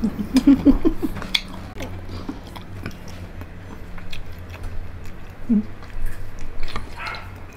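Close-miked mukbang eating sounds: chewing and biting into crispy fried pork tenderloin and rice, with many short, sharp mouth clicks and smacks.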